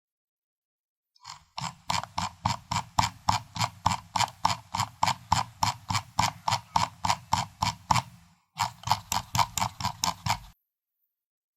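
Computer mouse scroll wheel being rolled, its notches clicking evenly about five times a second. The clicking starts about a second in, breaks off briefly near the end, resumes for a couple of seconds, then stops.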